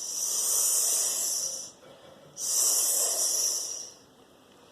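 A person imitating a snake's hiss: two long "sss" hisses, each about a second and a half, with a short pause between them.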